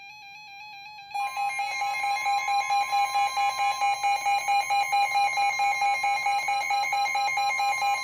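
Several NOAA weather radios going off at once for a severe thunderstorm warning. About a second in, a loud steady alert tone sounds together with a pulsing electronic beep, about four beeps a second.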